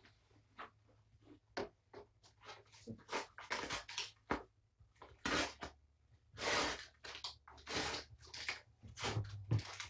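Irregular rustling, scraping and light knocking from things being handled or moved about, sparse at first and getting busier about three seconds in.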